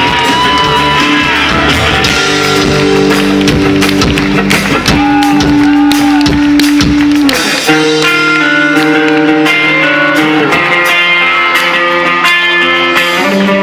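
Live rock band playing an instrumental passage: electric guitar melody with bent notes over drums and bass. About halfway through, the drums and bass drop out and only the guitars carry on.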